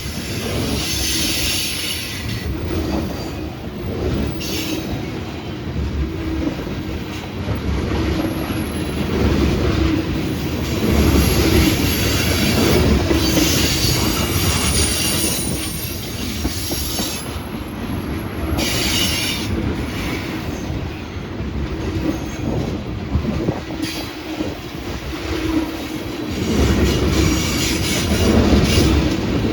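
Freight train cars rolling past with a steady rumble, and wheel squeal on the rails coming and going in several stretches.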